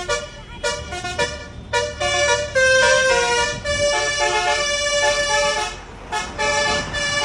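A bus's multi-tone musical air horn, Basuri 'telolet' style, plays a tune of stepped notes over the low rumble of the engine. It opens with short blasts and moves to longer held notes, with a short break about six seconds in.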